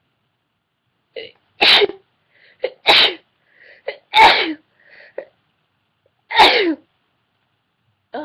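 A woman sneezing hard four times in a row, each sneeze preceded by a short catching breath, with another starting at the very end; the fit is induced by sniffing pepper.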